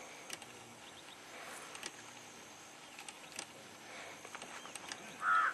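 Faint outdoor ambience with scattered light clicks and chirps. Near the end comes one short, loud, high-pitched call.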